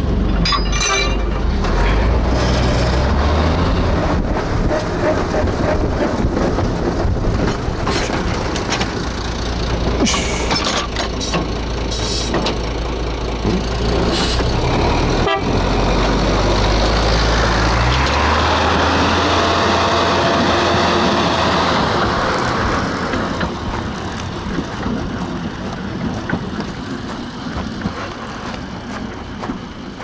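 Small forest-railway diesel locomotive running, heard from inside its cab: engine hum with clicks and knocks from the wheels and running gear. About eighteen seconds in, the engine's low hum drops away and the sound grows gradually quieter.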